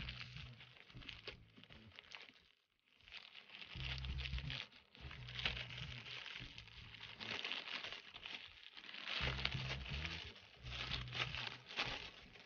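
A thin plastic carrier bag crinkling and rustling in bursts as it is unwrapped by hand to get at a small box. It is joined in several stretches by a low rumble from the handling.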